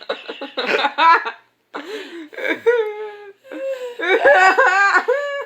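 A person laughing in high-pitched giggles, in short broken runs with brief pauses, set off by the tickle of a cat licking their neck.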